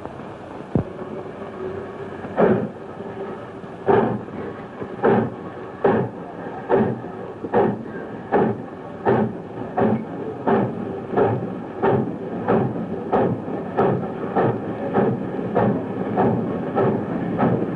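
Steam locomotive pulling away: a sharp knock about a second in, then exhaust chuffs that start slowly and speed up steadily as the engine gathers speed.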